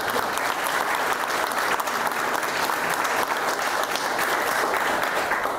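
A group of people applauding, steady throughout and dying away at the end.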